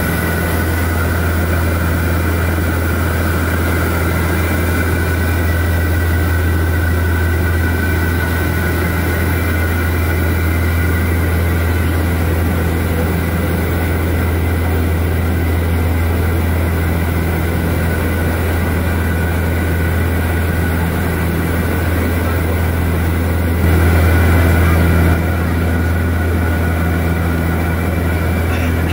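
Steady drone of the Antonov An-24B's twin turboprop engines and propellers in flight, heard inside the passenger cabin: a strong low hum with a couple of steady higher tones above it. It swells briefly louder for about a second and a half near the end.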